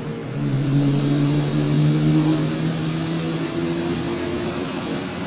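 A motor vehicle engine running, swelling in about half a second in with its pitch creeping slowly upward, then easing off toward the end.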